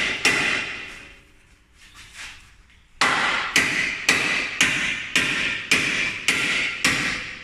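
Hand hammer striking the steel bodywork of a 4x4's inner wheel arch, each blow ringing. A blow or two at the start, a pause, then a steady run of about eight blows, roughly two a second.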